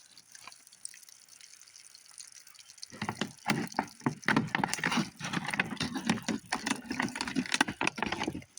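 Water splashing and pouring out of a shot plastic water jug as it is emptied, starting about three seconds in and going on as an irregular, busy splashing.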